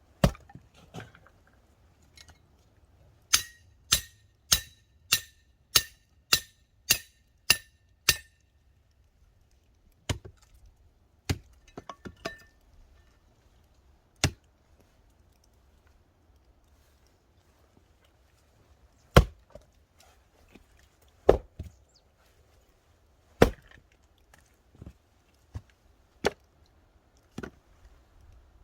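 Firewood being chopped with an axe. A quick, even run of about nine ringing strikes is followed by single chops every couple of seconds.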